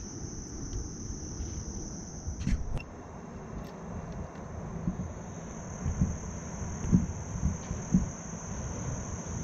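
Steady high-pitched insect chorus, with a low rumble underneath and a few dull low knocks.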